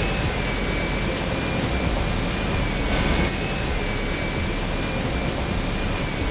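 Homemade RC truck running loaded with gravel. Its small electric drive motor and gears give a steady high whine whose pitch wavers a little, over the rough noise of the drivetrain and wheels.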